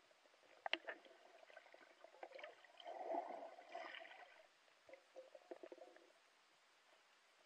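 Faint, muffled water gurgling and bubbling heard through an underwater camera, with a couple of sharp clicks or knocks a little under a second in and a louder burst of gurgling around the middle.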